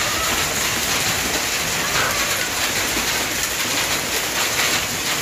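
Heavy rain mixed with hail pouring down in a steady, dense hiss of countless fine impacts.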